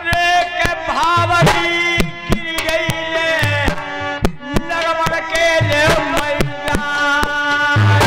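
Dhola folk music: a man's sung melody through a microphone, with gliding, held notes over quick, frequent hand-drum strokes.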